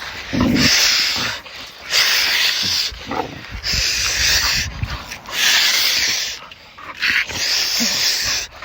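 Five-month-old XL bully puppy breathing heavily, with five long, noisy breaths about every second and a half and a few low grunts between them.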